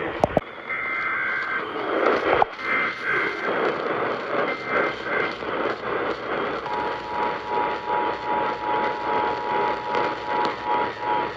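Emergency Alert System transmission heard through heavy radio static: three short bursts of the SAME header data tones, then, a little over halfway in, the steady two-tone EAS attention signal starts and holds. The static pulses throughout, with two sharp clicks at the very start.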